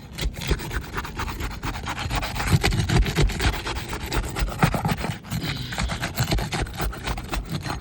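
Scraping and crackling as a tool is worked under an asphalt shingle to break its sealant bond, the glued-down tab tearing loose from the strip beneath.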